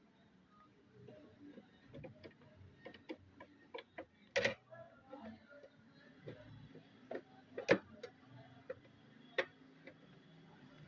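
Irregular clicks and taps of small computer parts and tools being handled during assembly, with louder knocks about four, seven and a half, and nine and a half seconds in.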